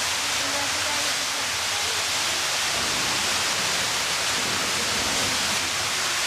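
Steady, even hiss with faint murmuring voices in the background.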